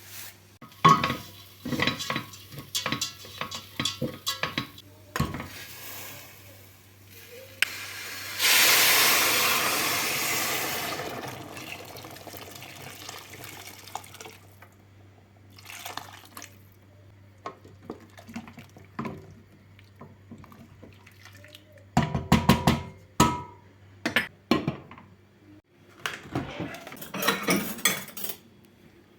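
Kitchen work sounds: dishes and utensils clinking and clattering, with a tap running into a sink for a few seconds about a third of the way in, over a steady low hum.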